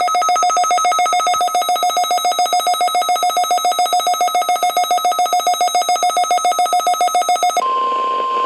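A loud, rapidly pulsing buzzy alarm tone, which cuts off about seven and a half seconds in; a steady single-pitch tone then starts, the NOAA Weather Radio 1050 Hz warning alarm tone that opens a National Weather Service broadcast.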